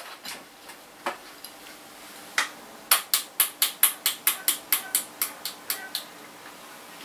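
Mountain bike's rear gears being shifted down: a few single metallic clicks, then from about three seconds in a quick even run of sharp metallic ticks, about five a second, lasting some three seconds.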